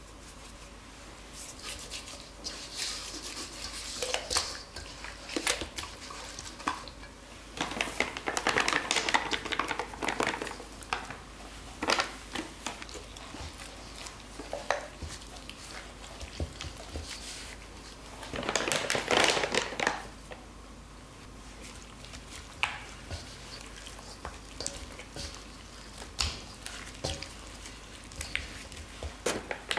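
Raw whole chickens being rubbed and turned by gloved hands in a coarse frying powder inside a stainless steel bowl: rustling, squishing and taps of meat against the metal, in irregular bursts with two louder stretches, about 8 and 19 seconds in.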